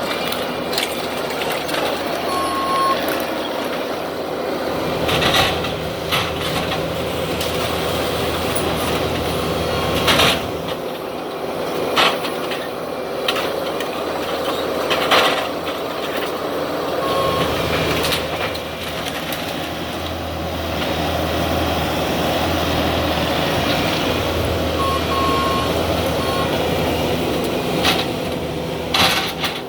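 Heavy demolition machinery running steadily, with loud bangs and crunches of debris at irregular intervals and a few short beeps.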